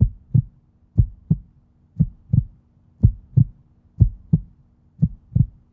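Heartbeat sound effect: six double thumps in a lub-dub rhythm, about one pair a second, over a faint steady low hum.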